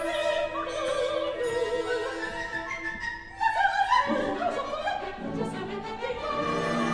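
Coloratura soprano singing an operatic aria in French over a full orchestra, her voice wavering with vibrato. About three seconds in the music dips briefly, then comes back louder.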